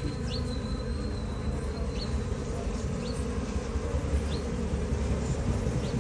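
Honeybees from a traditional hive buzzing steadily in a dense swarm as the colony is disturbed for honey harvesting.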